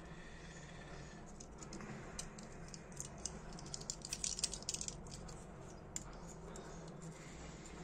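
Faint small metallic clicks and scrapes of a brass Dunhill Rollagas lighter's parts being handled and worked with a small screwdriver, with a quick run of clicks about four seconds in.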